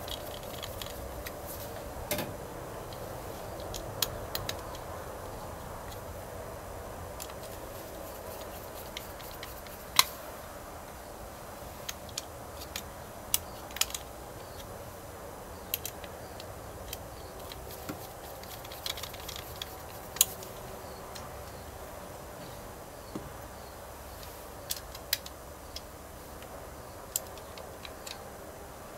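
Hand screwdriver driving small screws through a circuit board into a plastic control-panel housing: irregular sharp clicks and ticks of the driver tip and the parts, one every second or few.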